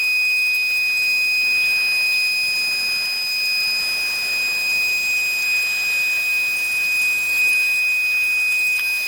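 Spindle of a horizontal glass CNC machining centre running at a steady high speed while milling glass, giving a constant high-pitched whine over a hiss of grinding and coolant.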